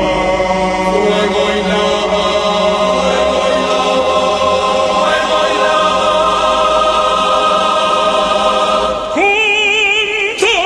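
Background music: a choir chanting long held notes over a low drone. About nine seconds in, a solo voice with a wide vibrato comes in.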